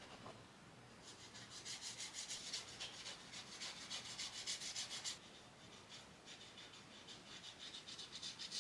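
A white wax candle rubbed back and forth on rough, grainy watercolour paper in quick repeated strokes, laying down a wax resist to keep the paper white. The strokes stop a little past the middle and start again near the end.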